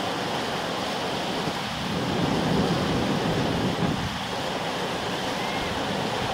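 Tidal rapids rushing steadily as a large standing wave breaks into churning whitewater. The sound swells a little about two seconds in and eases back about four seconds in.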